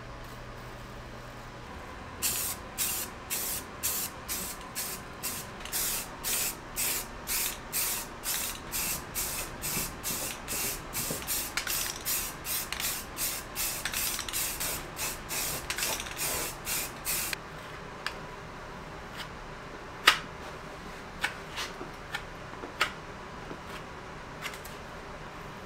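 Aerosol spray can of filler primer hissing in short, quick bursts, about two or three a second, for around fifteen seconds. A few sharp clicks and taps follow, the loudest about twenty seconds in.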